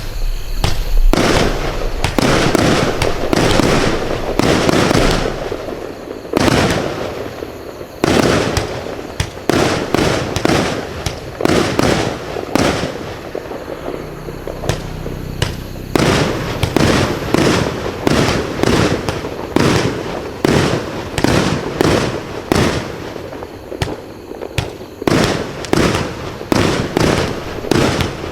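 Wizard PCA042 66-shot mixed-effects fireworks cake firing. Shots launch in quick succession, often several a second, and burst overhead in a continuous loud barrage with only brief lulls.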